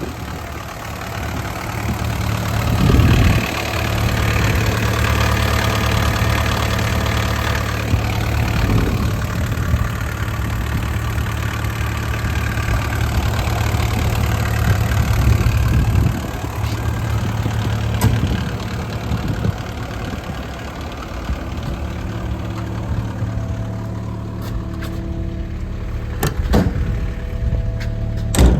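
JCB 55Z-1 midi excavator's diesel engine running, louder and busier for a stretch early on, then settling back to a steadier running note. A few sharp knocks come near the end.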